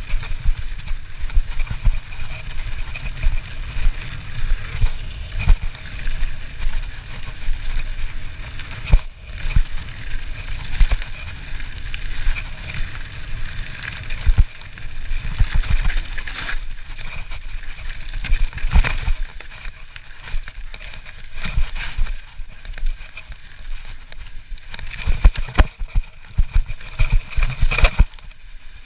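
Trek Slash full-suspension mountain bike ridden fast down a dirt trail: tyres rolling over dirt and the bike rattling and knocking over bumps, over a steady low rumble.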